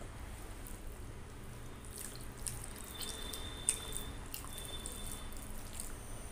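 Wet clicking and squelching of fingers mixing rice with kadhi (yogurt curry) on a steel plate, with one sharper click a little past halfway.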